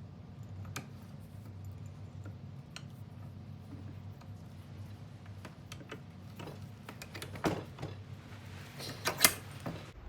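Scattered light clicks and taps of small hard parts being handled, with a few sharper clicks in a cluster toward the end, over a steady low hum.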